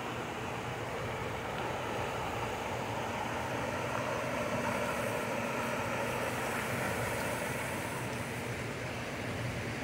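Steady rushing and babbling of a shallow mountain creek flowing over rocks and small riffles.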